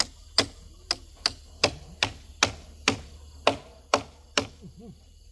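Hammer blows driving a nail into a wooden batten: about eleven sharp strikes at roughly two a second, stopping near the end.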